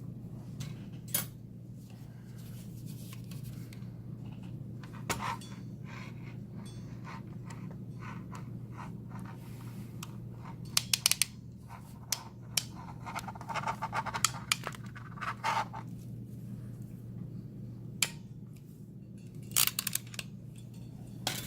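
A crimping tool and coaxial connector parts being handled: scattered sharp clicks and light scrapes, with a quick run of clicks near the middle, over a steady low hum.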